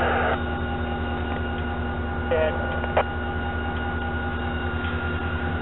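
EMD SD40-2 diesel locomotives idling, a steady low throb with a constant hum on top. A hiss cuts off just after the start, and a single sharp knock comes about three seconds in.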